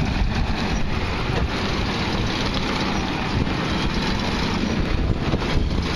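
1967 Ford Custom's 427 big-block V8 running steadily as the car rolls slowly past at low speed.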